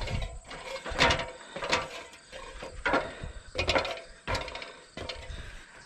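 Knocks and clanks of boots and hands on aluminium ladder rungs while climbing to a steel barn roof, an uneven knock every half second to a second, over a low rumble of handling on the microphone.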